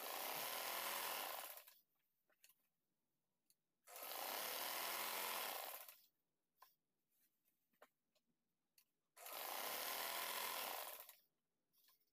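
Sewing machine stitching elastic onto a gathered waistband, running in three bursts of about two seconds each with short pauses between.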